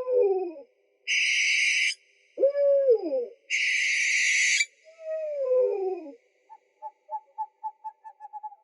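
Owl calls: three low hoots, each sliding down in pitch, alternating with two harsh hissing screeches about a second long. Near the end comes a rapid series of short, higher toots, about five a second.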